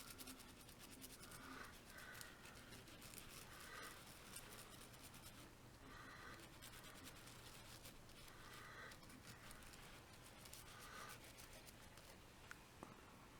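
Faint, scratchy brushing as a small brush wet with isopropyl alcohol scrubs flux off a soldered circuit board.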